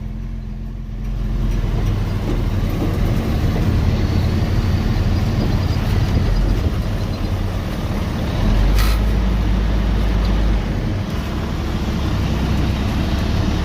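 Semi truck running on the move, a steady low engine drone that grows heavier for about two seconds past the middle. A short sharp click sounds just before that.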